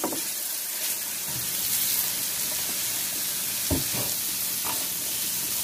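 Chopped green peppers, onions and mushrooms sizzling in butter on a hot griddle, a steady hiss as they are tossed with a metal spatula, with a couple of short spatula knocks about two-thirds of the way through.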